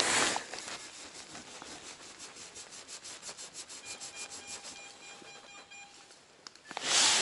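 Soil and leaf litter scraped and rustled by hand while a metal detector target is dug out, loudest at the start and again near the end. Faint short electronic beeps from the metal detector sound in the second half.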